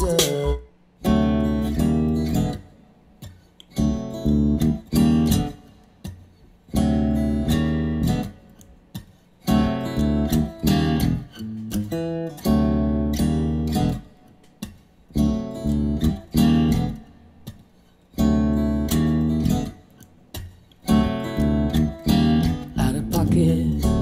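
Recorded music played back over studio monitor speakers and a subwoofer in a room: strummed guitar chords in short stop-start bursts over deep bass.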